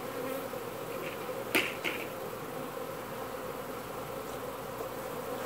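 A large cloud of honeybees buzzing in a steady hum, disturbed and airborne after being dumped into a hive box. A short knock comes about one and a half seconds in.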